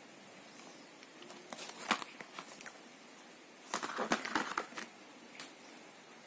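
Packaging being handled, crinkling and clicking in two short bouts about two seconds apart, with a single click near the end.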